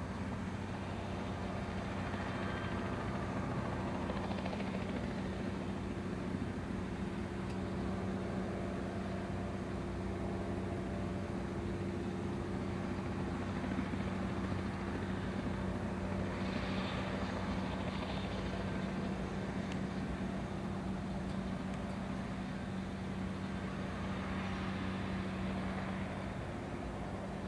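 Eurocopter EC130 B4 helicopter running on the ground at idle after landing, its Turbomeca Arriel turboshaft and rotors making a steady hum with a few held low tones.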